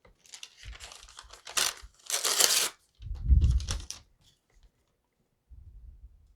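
Victorinox Pioneer X pocket knife blade cutting through a sheet of paper held in the hand: three papery strokes in the middle, the longest about half a second, with paper rustling and a dull thump of handling. It is a paper cut test of the blade's sharpness, and the blade turns out duller than expected, tearing more than it slices.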